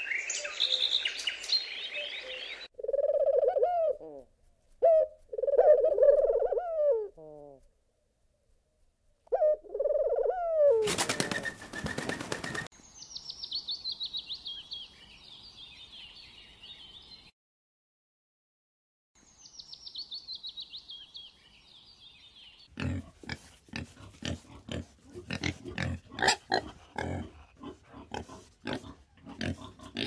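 A string of animal sounds. Helmeted guineafowl chatter at the start, then low cooing notes come in short phrases, and a brief loud rush of noise follows about eleven seconds in. Two high bird trills fall in pitch, and from about twenty-three seconds on pigs grunt in quick, uneven succession.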